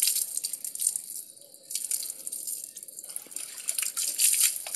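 Water splashing and dripping over a dog's coat during a bath, coming in irregular bursts with a louder splash about four seconds in, heard thin through a phone's speaker.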